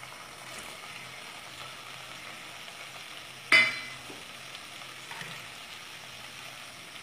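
Softened tomato mixture sizzling steadily in a non-stick pan, with one sharp clink about three and a half seconds in.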